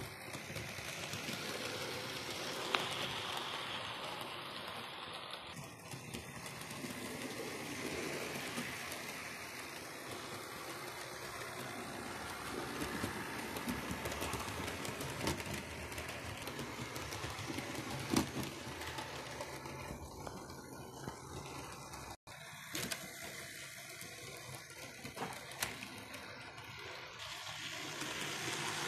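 Model railway locomotive running on track: a steady whirring of its small electric motor and wheels, with a few sharp clicks over rail joints and points.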